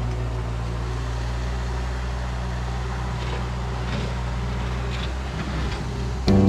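ASV RT-60 compact track loader's diesel engine running steadily as the machine moves, with a few faint knocks from the tracks or bucket. Loud music cuts in just before the end.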